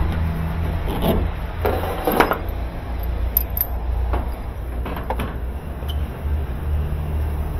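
Handling of a washing machine and its corrugated plastic drain hose: several short scrapes and rubs, over a steady low hum.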